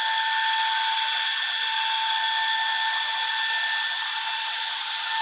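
A 1500 W laser welding machine welds in a steady, even high hiss with a thin whine, over a constant tone of the machine.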